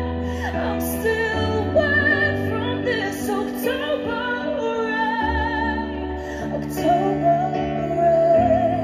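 A woman singing a slow ballad live, accompanied by sustained keyboard chords and bass notes. Her voice wavers with vibrato and ends on one long held note near the end.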